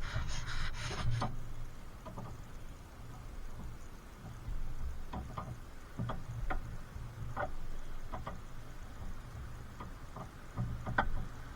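Hand tools working on car suspension parts: a short rubbing scrape that stops about a second in, then scattered light metal clicks and ticks at irregular spacing.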